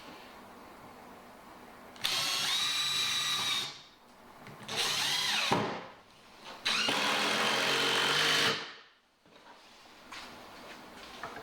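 Handheld power driver run in three bursts of one to two seconds each, a motor whine. The second burst rises and falls in pitch as the trigger is squeezed and eased.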